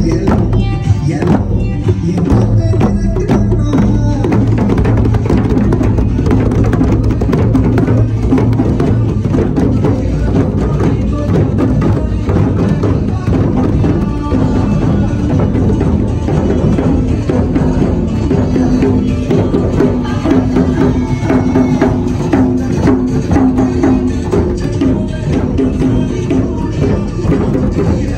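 A hand-drum ensemble playing together in a dense, steady rhythm: several djembes struck with bare hands, with a frame drum hit with a beater.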